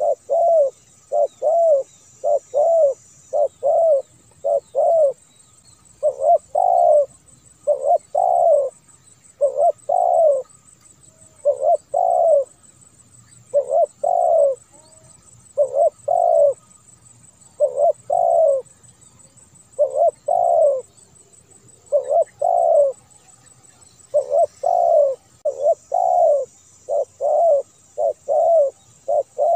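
Spotted dove cooing: a long run of loud coo notes, each arching up and then down in pitch, delivered in quick pairs and short runs with brief pauses between them.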